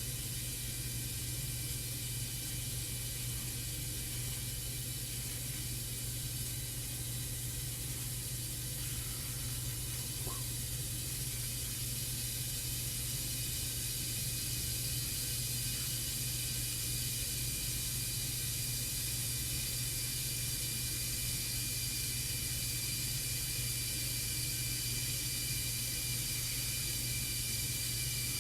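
Steady hiss with a low hum underneath, unchanging throughout, with no distinct strokes or clicks.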